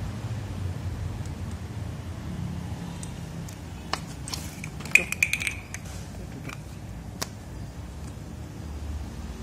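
Light metal clicks and a short ringing clink, loudest about five seconds in, as the clamp bolt and metal shaft housing of a brush cutter are handled, over a steady low background rumble.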